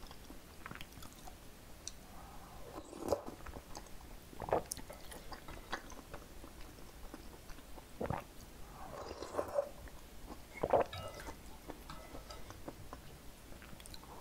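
Close-miked eating sounds: sipping thick perilla seed broth from a wooden spoon and chewing soft sujebi dough, with about five louder slurps spread through.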